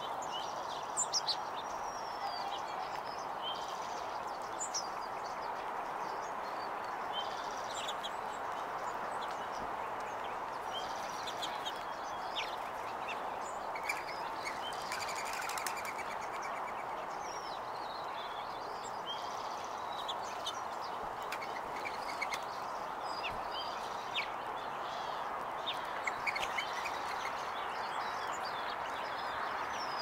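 Small songbirds chirping in short, scattered high notes over a steady background hum, with a few brief sharp ticks.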